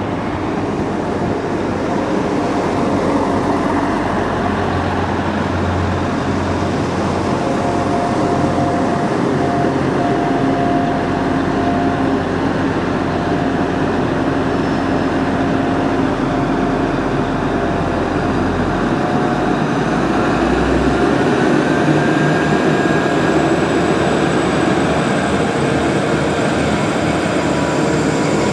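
Diesel train running loudly at close range, a steady engine sound with a low rumble. The rumble drops away about two-thirds through, and a whine then rises in pitch.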